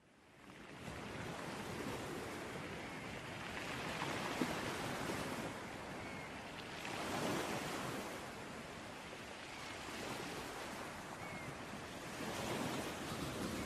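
Ocean surf: waves breaking and washing onto a beach in a continuous rushing wash that swells and eases every few seconds. It fades in from silence during the first second.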